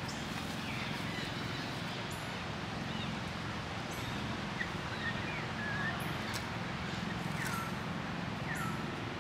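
Outdoor ambience: a steady hiss and low hum, with a few brief, high chirping calls that fall in pitch, scattered through it.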